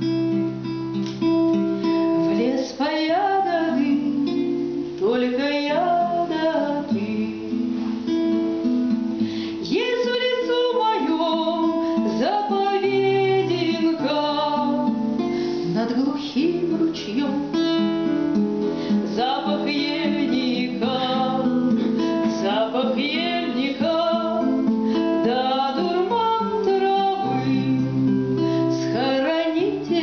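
A woman singing a Russian bard song to her own accompaniment on a nylon-string classical guitar, plucked and strummed. The guitar plays alone briefly, then the voice comes in a couple of seconds in.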